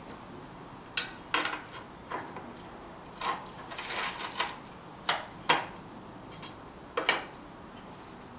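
Steel drawknife blade with a C-clamp on it set down on brick supports in a metal tray, clinking and knocking against the tray and bricks as it is placed and adjusted. A string of separate sharp clinks, with a quick cluster about four seconds in.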